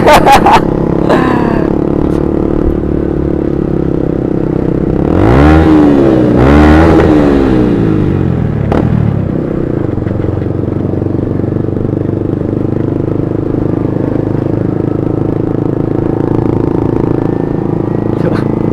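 Motorcycles in a group ride running steadily under way. About five seconds in, an engine revs up and back down twice within a few seconds.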